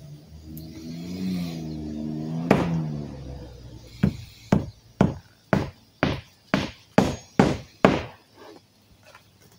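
A hammer driving nails into rolled roofing on a shed roof: about nine sharp, evenly paced strikes, roughly two a second, starting about four seconds in, then a couple of fainter taps. Before the strikes there is a low, wavering drone.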